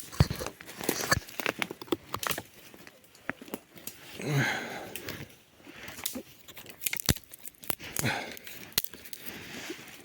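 Irregular crunching and rustling with scattered sharp snaps and cracks.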